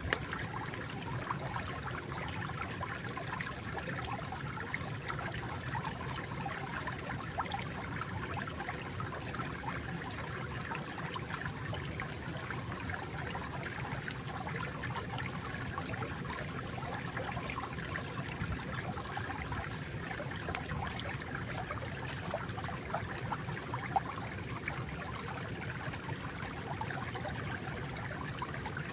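Stream water flowing and trickling steadily, with small splashes and gurgles.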